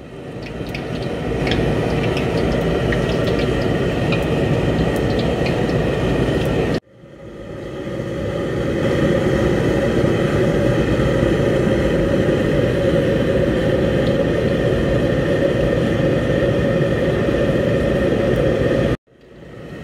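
Battered chicken pieces deep-frying in hot oil in a steel wok over a commercial gas wok burner: a steady rumble of the burner under the sizzle of the oil, with scattered crackles in the first few seconds. The sound drops out about seven seconds in and fades back up, and drops out again near the end.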